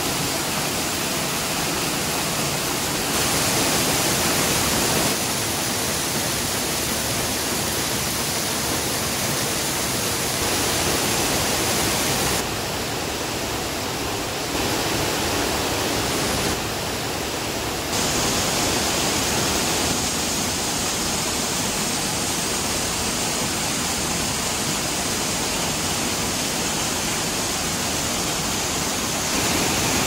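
Kaminari-daki waterfall's roar, heard close up from behind the falling curtain of water: loud, steady rushing of water crashing onto rock. The loudness jumps up or down abruptly a few times.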